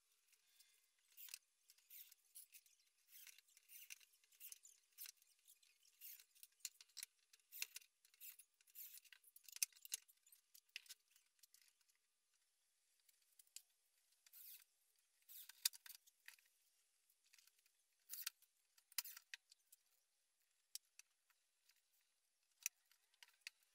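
Hands handling a plywood folding toolbox: faint, irregular light clicks and ticks of fingers and the small metal hinges on the wooden lids, coming in clusters with short pauses.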